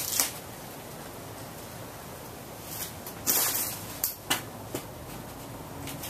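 A 1986 Hunter Original ceiling fan with an oil-bath stack motor runs with a steady airy hiss. A handful of short, sharp noises break through: one at the start, a longer one about three seconds in, and a few quick ones just after.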